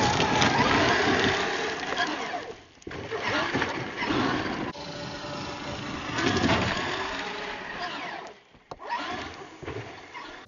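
Radio-controlled truck driving hard over gravel: a whirring motor whine with gritty tyre noise that rises and falls, cutting out briefly about three seconds in and again near the end.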